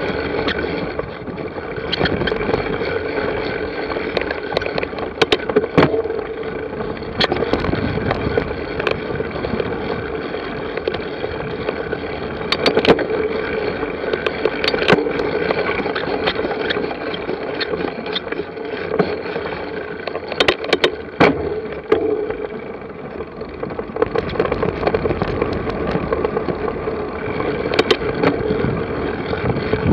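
Cyclocross bike ridden over rough ground: steady tyre and wind noise with frequent rattling knocks from the bike.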